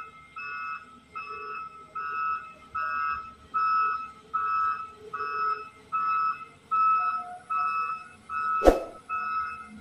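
Heavy-machine warning alarm on a Volvo EW145B wheel excavator beeping steadily, nearly two beeps a second, the kind sounded while the machine travels or reverses. A single sharp thump stands out near the end.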